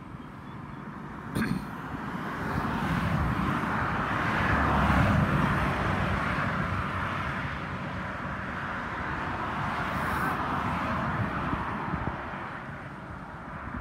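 A passing vehicle heard at a distance: a rushing engine noise that swells to its loudest about five seconds in and fades away over the following seconds.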